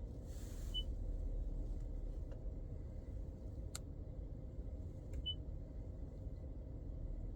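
Toyota Prius Prime HVAC system running with a steady low hum, with two short high beeps about four and a half seconds apart. The owner suspects the auxiliary heat pump is failing.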